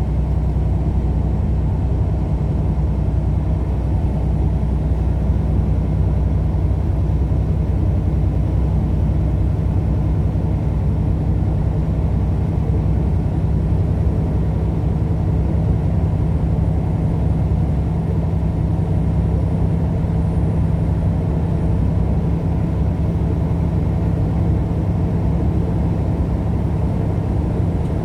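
Steady engine and road drone of a vehicle cruising at a constant speed, a low even hum that does not change.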